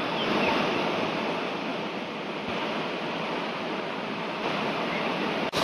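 Steady rushing of a waterfall's falling water, an even hiss-like roar with no other distinct sound in it; right at the end it jumps suddenly louder.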